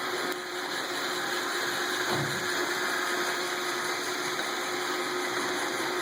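iRobot Roomba 770 robot vacuum running: a steady whir of its vacuum motor and brushes with a constant hum.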